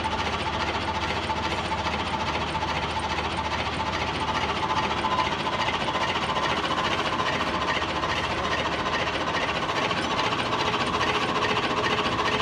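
Electric machinery of a blade-sharpening setup running steadily: the cutter's blade rotor turning, giving an even, rattling mechanical drone with a faint steady hum.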